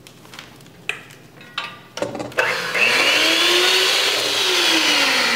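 Electric hand mixer switched on about two seconds in, then running loud and steady as its beaters whip heavy cream and powdered sugar in a stainless steel bowl; its whine rises and then slowly falls. A couple of light knocks come before it starts.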